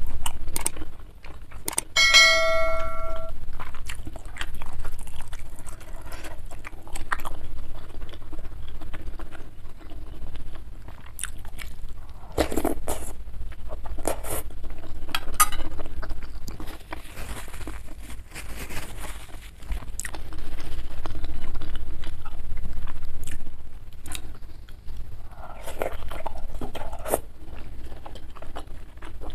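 Close-up eating sounds over a bowl of meatball soup: chewing, slurping broth off a metal spoon, and the spoon and fork clicking against the ceramic bowl. One ringing clink sounds about two seconds in.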